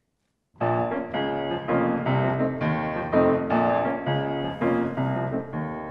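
Piano introduction to a show-tune accompaniment, starting about half a second in: repeated chords changing about twice a second over low bass notes.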